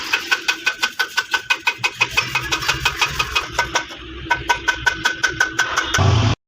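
Small single-cylinder 70 cc motorcycle engine running at a slow idle, each firing heard as a distinct beat, about six or seven a second. Near the end the sound turns louder and deeper, then cuts off abruptly.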